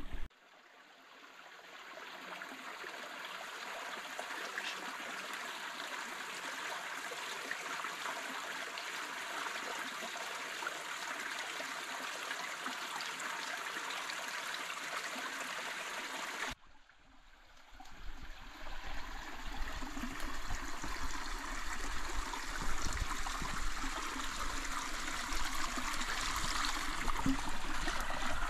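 Small rocky forest stream running and trickling steadily. The sound drops out briefly about halfway through and fades back in, with a few sharp campfire crackles near the end.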